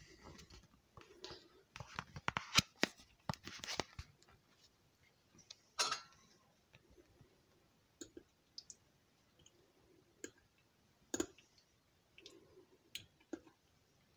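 Scattered light clicks, taps and scrapes of kitchen utensils and cookware being handled, a quick run of them in the first few seconds and then single taps every second or two with quiet gaps between.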